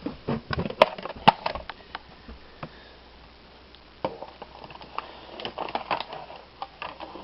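Dry dog kibble crunching and clattering in irregular bursts of sharp clicks, in two spells.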